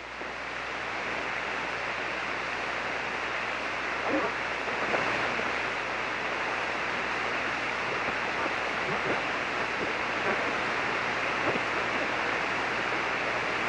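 Steady hiss of 40-metre band noise from the Icom IC-7300 transceiver's receiver on SSB, cut off above about 3 kHz by the receive filter, with a low hum underneath. The hiss swells up over about the first second, as the receiver comes back after transmitting.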